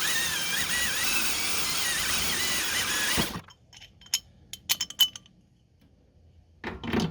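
Electric drill boring a pilot hole: the motor whine runs for about three and a half seconds, wavering in pitch under load, then stops abruptly. A few light clicks and clinks follow.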